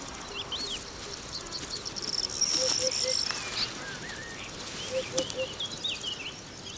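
Eurasian hoopoe giving its low three-note hoot twice, a few seconds apart, over the high chirps and twitters of other small birds.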